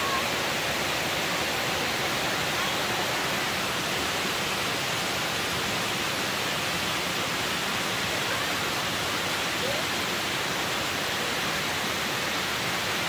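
Water pouring down a curved concrete dam spillway into the pool below: a steady, even rush of falling water.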